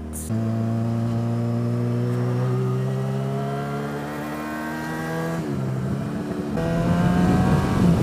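Motorcycle engine under way, starting louder a third of a second in, its note easing slowly downward, dropping away briefly about five and a half seconds in, then pulling again. Rougher wind and road rush over the microphone builds near the end.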